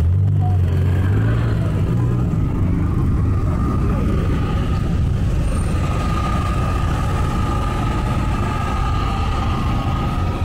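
Road traffic close by: vehicle engines running with tyre and street noise, the low engine sound strongest in the first couple of seconds. A thin, steady high tone joins about four seconds in.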